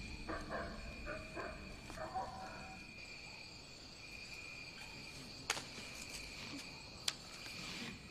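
Night forest ambience: night insects keep up a steady, high, shrill chorus. Short pitched sounds come in the first couple of seconds, and two sharp clicks come about five and a half and seven seconds in.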